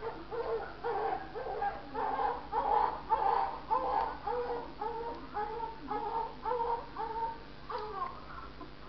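Newborn baby crying in short, repeated cries, about two a second.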